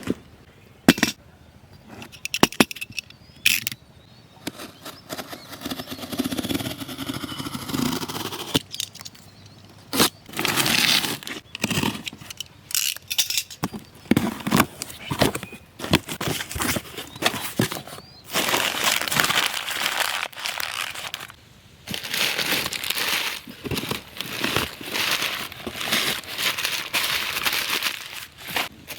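Packaging being handled and opened: plastic and cardboard crinkling and rustling in irregular bursts, with sharp clicks and knocks.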